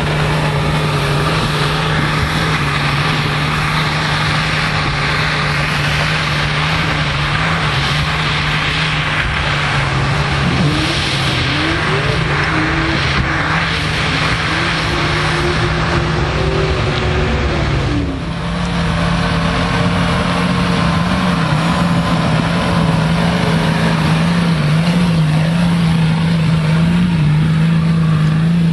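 Off-road 4x4 engines working hard up a steep dirt climb, the revs rising and falling as the driver works the throttle. About two-thirds of the way through the sound cuts to another vehicle's engine running steadily.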